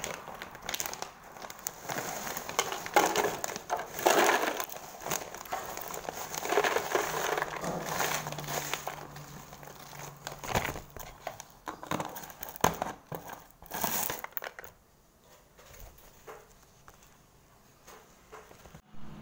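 Crisp fried chips being poured from a plastic snack packet into a clear plastic jar: a dense crackling rattle of chips tumbling in, with the packet's plastic crinkling. It dies down about fifteen seconds in.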